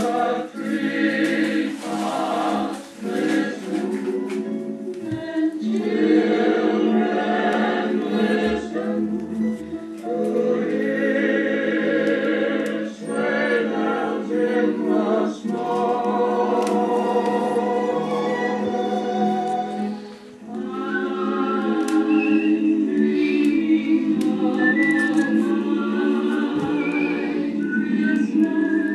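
Choir singing gospel-style music, several voices over a sustained accompaniment, with higher gliding vocal notes in the last third.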